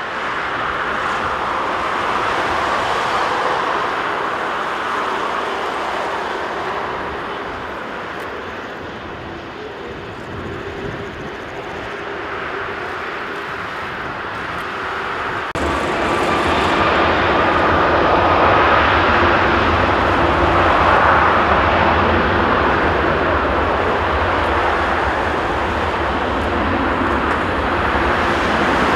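Airbus A330-300's Rolls-Royce Trent 700 turbofans running at taxi power, a steady jet hum. About halfway through, the sound jumps louder with a deeper rumble and a faint rising whine as the engines spool up toward take-off power.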